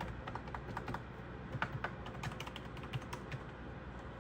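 Typing on a wireless retro typewriter-style keyboard with round keys: a quick, irregular run of light key clicks.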